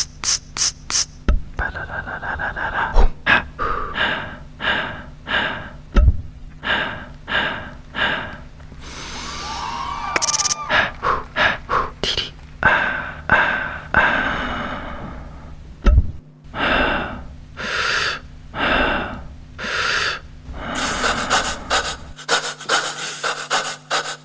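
Routine soundtrack of rapid, gasping breaths, about one or two a second, over a low steady drone. About ten seconds in there is a brief hissing swell, and near the end a denser rasping noise comes in.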